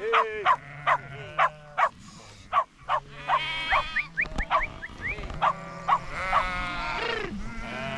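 A flock of sheep and lambs bleating, many calls overlapping one after another, short high lamb bleats mixed with lower, longer ewe bleats, louder and longer near the end.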